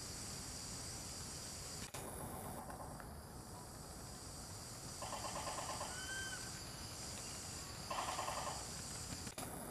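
Insects shrilling in a steady high-pitched chorus, with three short pulsing, buzzy calls about 2, 5 and 8 seconds in and a faint brief whistled note in between.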